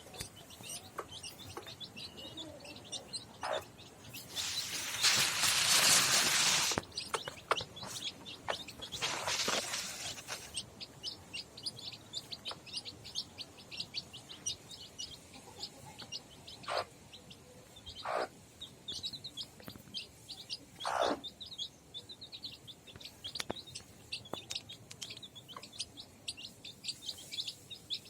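Chicks peeping, rapid short high chirps, several a second, throughout. A loud rushing, rustling noise about five seconds in lasts some two seconds, and a shorter, softer one follows about nine seconds in.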